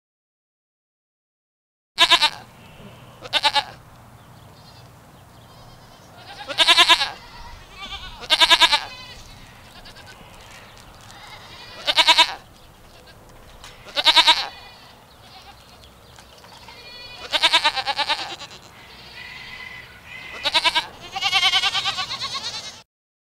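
Goats bleating: about nine separate calls, some in quick pairs, over a faint steady background hiss.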